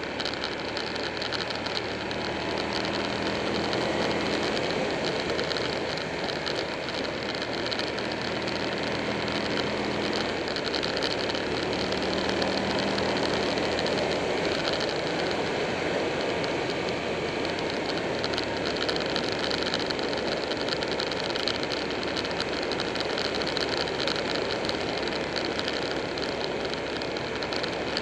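Buell 1125R's 1125 cc V-twin engine running at road speed under a steady rush of wind and road noise as the motorcycle rides through curves. The engine note changes pitch several times in the first part and sinks under the wind noise about two-thirds of the way through.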